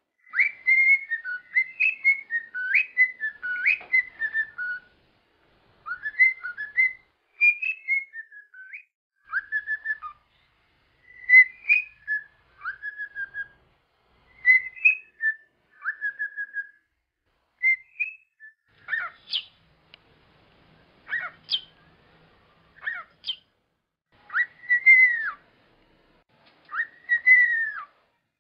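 Cockatiel whistling its natural song: phrases of short gliding whistled notes with brief pauses between them, a few sharp rising chirps in the second half, and two longer arched whistles near the end.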